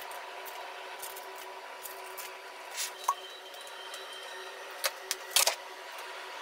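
Steady room hum with a few light clicks and taps from chopsticks setting prawn pieces on a salad and a dressing bottle being handled and poured, a small cluster of them about five seconds in.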